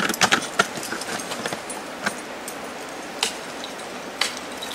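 Ice-climbing gear clicking and knocking: a quick cluster of sharp clicks and knocks, then single clicks about once a second, as the climber shifts his planted ice tools and crampons on the ice and the hardware on his harness clinks.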